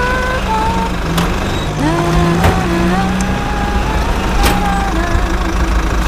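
Radio-controlled hydraulic construction machine at work: a steady low hum under a motor whine that holds a pitch, then jumps or slides to another as the load changes, with a sharp rise about two seconds in. A few sharp clicks come through, at about one, two and a half and four and a half seconds in.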